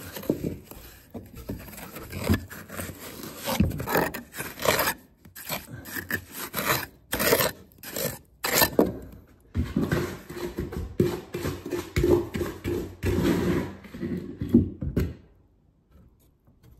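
Trowel scraping and pressing wet mortar into a gap under bricks, metal rasping on brick and grit in irregular strokes that stop near the end.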